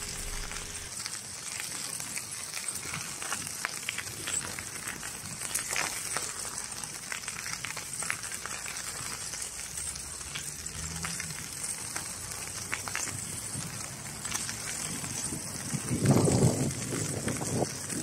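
Outdoor field ambience: a steady high hiss with scattered soft crackles. About two seconds before the end a louder, lower rumbling noise comes in.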